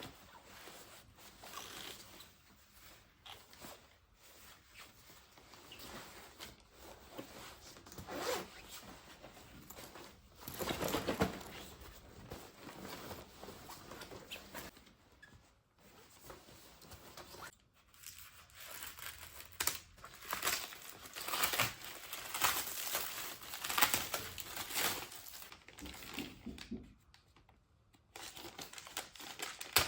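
Irregular crinkling, rustling and tearing of packaging being handled, in uneven bursts with a few short pauses.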